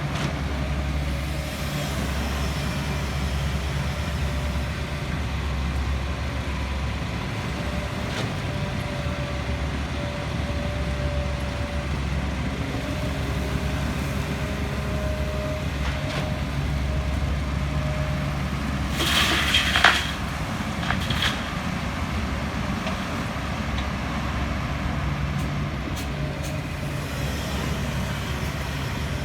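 Heavy diesel construction machinery running steadily, a low drone. About two-thirds of the way through comes a brief loud hiss, and a smaller one just after.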